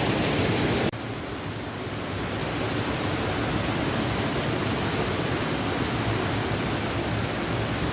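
Steady rush of flowing water from a mountain stream or waterfall, cutting off abruptly about a second in and going on straight after, a little quieter.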